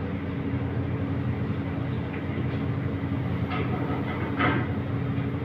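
Steady hum and drone of commercial kitchen machinery, with a constant low tone. About four seconds in comes a brief wet splutter as ketchup is squeezed from a plastic bottle into the pot.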